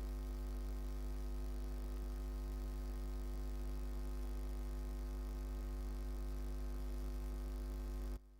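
Steady electrical mains hum, a low 50 Hz drone with a stack of overtones, which cuts off suddenly near the end.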